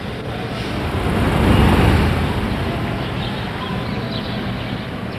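City street ambience: a steady hubbub of traffic with a vehicle passing, swelling to its loudest about two seconds in and then fading back.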